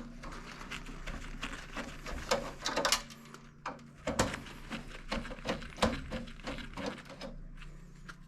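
Irregular clicks, taps and short scrapes of a screwdriver working screws out of a Broan PM600SSV range hood's metal frame.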